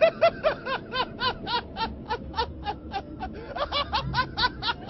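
High-pitched laughter, a quick, even string of 'ha' syllables at about four to five a second.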